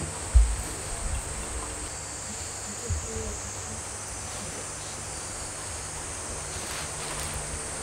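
Steady high drone of insects, with a heavy thump about half a second in as a bunch of chrysanthemum stems is dropped onto a wooden table, and a lighter knock about three seconds in.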